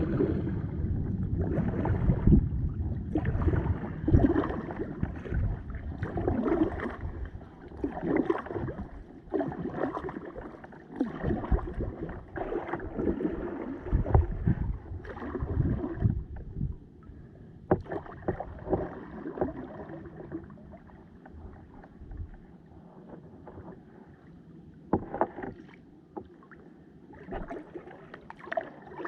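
Kayak paddle blades dipping and splashing in the river in an uneven stroke rhythm, over a low rumble. The splashing is louder for the first half and fainter from about seventeen seconds in.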